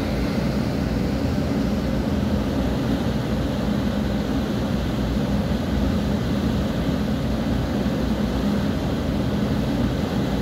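Steady low drone of a ship's engines, a hum of several steady tones, under an even rushing noise of water and air as the ship moves through the canal.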